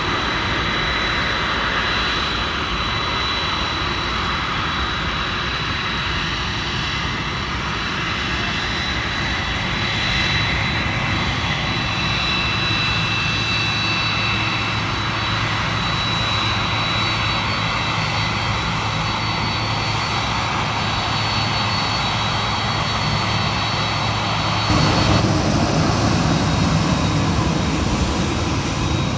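Twin jet engines of a Boeing 767-300F freighter running at high power on departure: a loud, steady rush with a high whine. About 25 seconds in, the sound steps abruptly louder and fuller.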